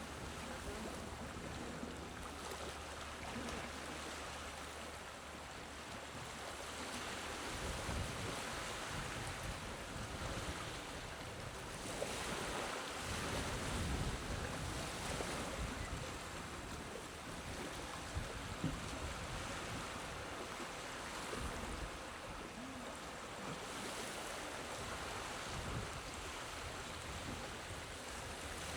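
Small, gentle waves washing onto a beach: a steady hiss of surf that swells softly every few seconds.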